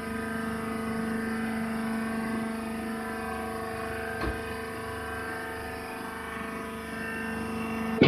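Steady, even hum of a hydraulic baler's power unit, its electric motor and hydraulic pump running without load. A single light click about four seconds in.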